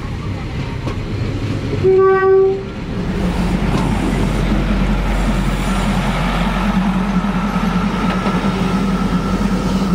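State Railway of Thailand diesel railcar sounding its horn once, a single held tone of under a second about two seconds in. The train then runs past very close by, its engine droning steadily.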